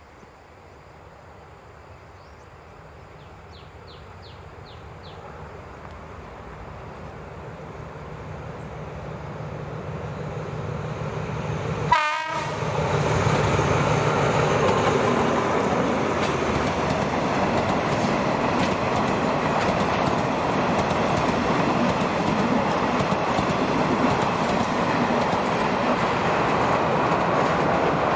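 Alsthom diesel-electric locomotive, re-engined with an MTU 16V 4000, hauling a passenger train: it approaches and grows steadily louder, sounds a brief horn blast about twelve seconds in, then passes close by with its engine running and the wheels clacking over the rail joints.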